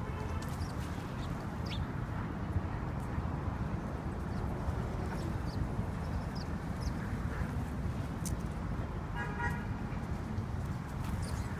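Street traffic rumbling steadily, with a short car horn toot about nine seconds in and a few faint, brief bird chirps.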